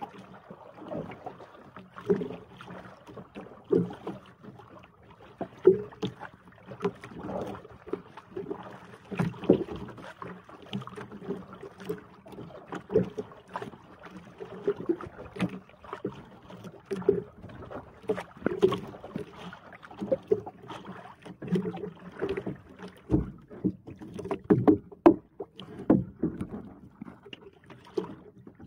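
Water slapping and knocking against the hull of a small outrigger boat on open sea, with irregular thuds every second or two over a steady wash of wind and water.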